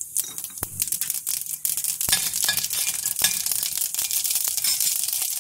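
Mustard seeds, urad dal and chana dal sizzling in hot oil in a stainless steel kadai, the mustard seeds crackling and popping, with a spoon scraping and clinking against the steel pan as they are stirred.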